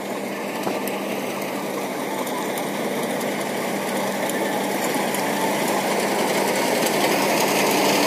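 Combine harvester running steadily as it cuts paddy, its engine and machinery a continuous hum that grows gradually louder as the machine comes closer.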